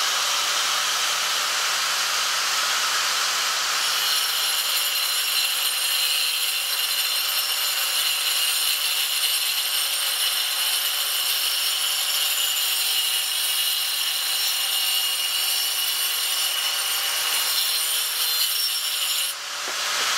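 Handheld angle grinder with an abrasive disc running against an old wooden hoe handle, sanding the wood with a steady rasping noise. A high whine joins about four seconds in and holds until the level dips near the end.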